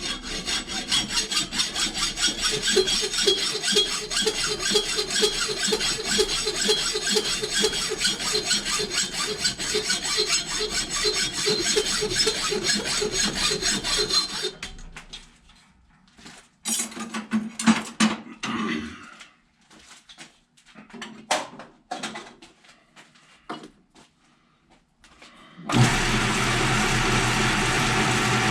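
Quick, even back-and-forth strokes of a hand tool working metal for about fourteen seconds, then a few scattered knocks and scrapes. Near the end a small motor starts and runs steadily.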